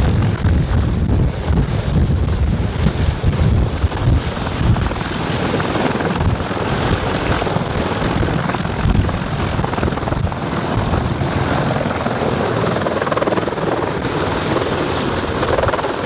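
CH-53E Super Stallion heavy-lift helicopter lifting off and flying away: steady rotor and engine noise with rotor-wash wind buffeting the microphone. The low rumble and buffeting are strongest in the first few seconds and ease about halfway through as it climbs away.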